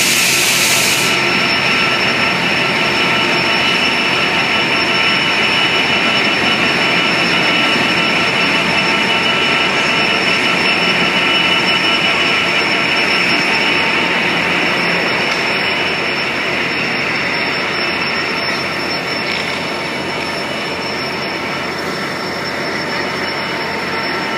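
Amtrak bilevel passenger cars rolling past on the rails, with a steady high whine from an F59PHI diesel locomotive standing close by. The noise eases slightly as the last cars clear, near the end.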